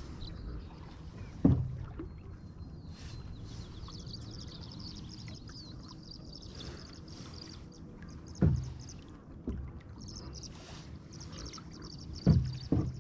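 Water washing steadily along the hull of a 1985 Old Town Discovery 174 polyethylene canoe under way, with sharp knocks on the hull from the paddling about a second and a half in, around eight and a half seconds in, and twice near the end. Faint high chirping trills run in the background from about three seconds in.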